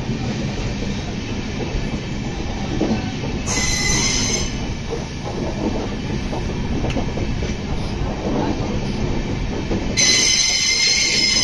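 LHB passenger coaches rolling past with a steady low rumble of wheels on rails. A high-pitched squeal from the running gear comes in twice, about three and a half seconds in for a second and again near the end.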